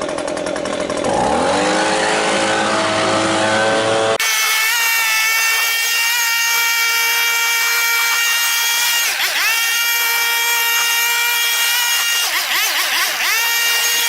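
Gas-powered blower running at high speed, blowing packed grass off a riding mower. Its pitch rises about a second in and holds steady, then dips and recovers twice as the throttle is eased and opened again.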